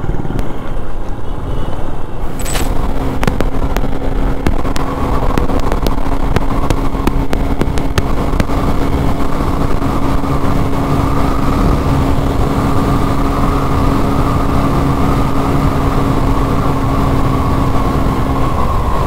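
Motorcycle running at a steady highway cruising speed, recorded from the bike itself, with road noise. A sharp click comes a couple of seconds in, then a steady engine tone holds for most of the ride.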